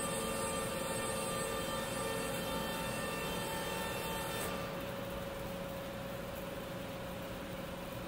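Steady machinery hum with a continuous hiss and several steady tones. The high hiss thins out a little past halfway.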